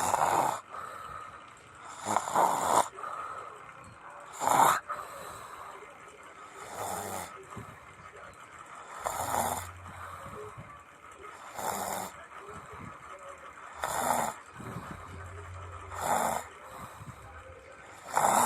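A person snoring in a steady rhythm, a harsh snore roughly every two and a quarter seconds.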